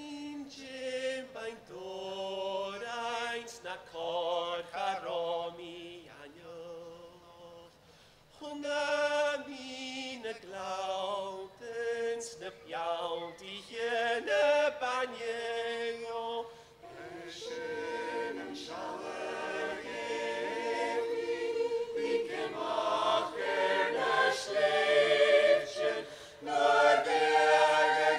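A mixed choir of men and women singing, in phrases separated by short pauses, growing louder through the second half.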